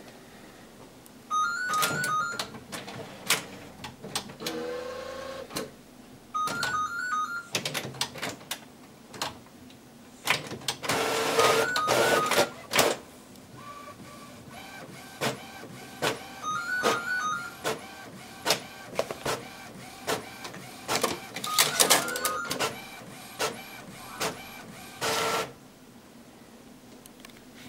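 Epson Stylus Photo PX830FWD inkjet printer printing a photo on A4: its motors run in short passes with many clicks and clunks as the paper feeds and the print head moves, and the activity stops near the end.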